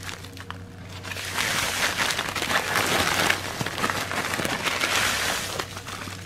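Thin plastic packaging bag crinkling as it is handled, starting about a second in and easing off near the end.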